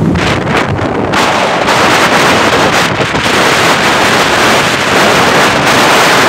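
Loud, steady wind rushing over the microphone of a phone carried on a moving vehicle, with road and traffic noise underneath.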